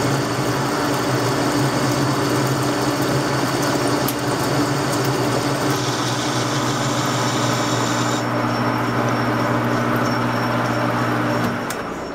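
Metal lathe running, its cutting tool turning down a round metal workpiece held in the chuck. There is a steady motor hum with the hiss of the cut over it, and the sound falls off near the end.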